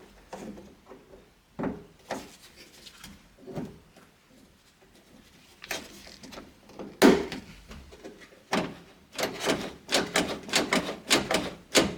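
Mechanical clicks and clunks of a Subaru Sambar sliding door's handle and latch linkage as it is clipped together and worked: scattered light clicks, a louder clunk about seven seconds in, then a quick run of repeated clicks near the end as the handle is operated.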